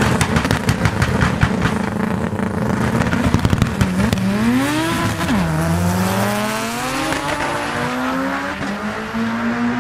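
Drag race cars launching from the start line: for the first four seconds the engines are held at high revs with a rapid crackling, then about four seconds in they launch, the engine pitch climbs, drops sharply at a gear shift, and climbs again as the cars accelerate away.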